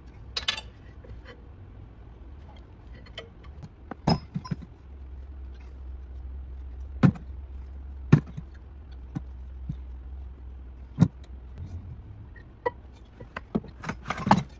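Metal clinks and sharp knocks of a wrench, bolts and the rear brake caliper as the caliper is unbolted and lifted off, with four loud knocks spread through the middle and a cluster of clinks near the end. A low steady hum runs underneath for part of the time.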